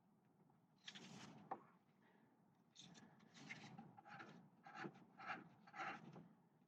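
Faint rubbing and scraping of hands and tools working at the brake: a brief rustle about a second in, then a run of about six short scrapes, roughly two a second.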